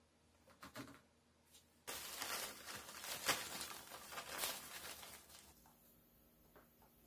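Rice flour poured from a plastic measuring cup into a stainless steel bowl of flour: a rustling hiss that starts about two seconds in, swells in a few peaks and dies away after about three and a half seconds. A few faint rustles of fingers in dry flour come before it.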